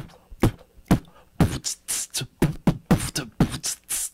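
A man beatboxing close into a microphone: mouth-made kick-drum and snare and hi-hat sounds in a steady beat, sparse for about the first second and then filling in with quicker hits.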